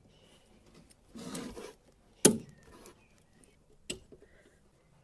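Hand tools working on a car's front brake and suspension assembly: a short scraping rustle, then two sharp clicks about a second and a half apart, the first the loudest.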